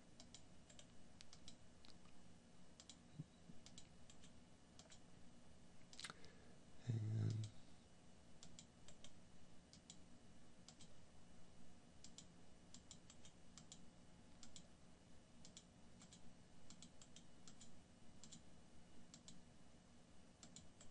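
Faint, irregular computer mouse clicks over near silence, with one sharper click about six seconds in followed by a brief low sound.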